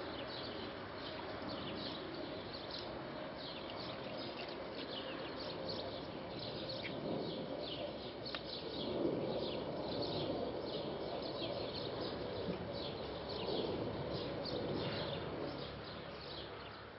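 Small birds chirping over and over against a steady outdoor background hiss, with a faint steady hum. There are a couple of louder, lower noises about halfway through and again later, and everything fades out at the end.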